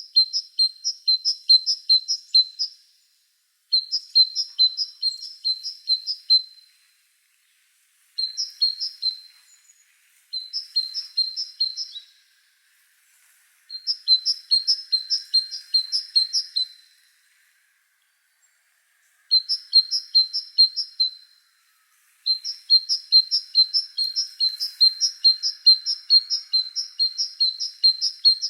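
A songbird chirping in repeated bouts of quick, evenly spaced high notes, about four a second, each bout lasting a few seconds before a short pause.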